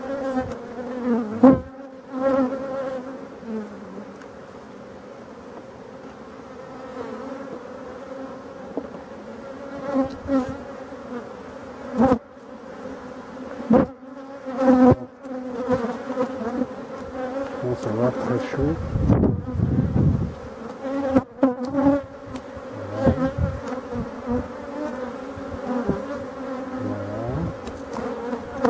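Honeybees buzzing in a steady, loud hum over an open hive crowded with bees. A few sharp knocks come from the wooden frames being handled.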